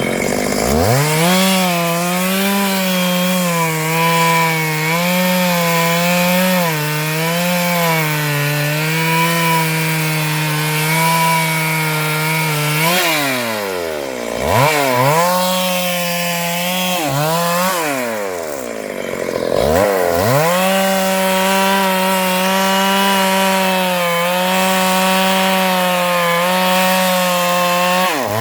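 Stihl MS 382 two-stroke chainsaw running at full throttle while cutting into a large sengon trunk, its engine pitch wavering a little under load. About halfway through, the engine drops off and revs back up twice before settling into the cut again.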